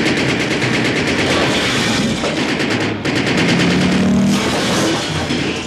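Long burst of rapid automatic gunfire for about three seconds, then more shots with a motorcycle engine running under them.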